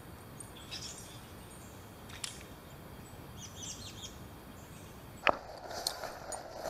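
Quiet riverside background with a few faint, short bird chirps. About five seconds in comes a sharp knock, then rustling and knocking of fishing gear being handled close to the microphone.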